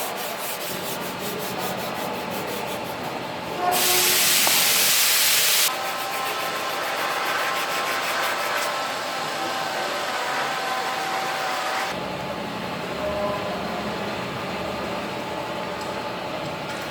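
Sanding on a car body panel: a steady scratchy rubbing throughout. About four seconds in, a loud hiss lasts roughly two seconds, and a faint steady whine follows for several seconds.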